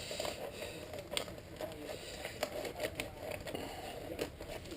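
Rustling and scattered light clicks of a tool pouch being handled and fitted into a motorcycle's tail under the seat.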